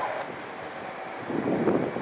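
Wind buffeting the microphone, easing in the first second and gusting up again in the second half.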